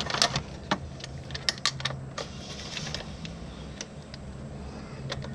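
Irregular sharp clicks and light metallic taps of a tool being worked on a throttle body's 10 mm mounting bolts.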